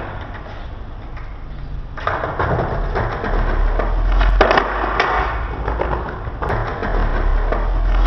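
Skateboard wheels rolling on a hard floor, the rumble starting about two seconds in, with a couple of sharp wooden clacks of the board around four and a half and five seconds in.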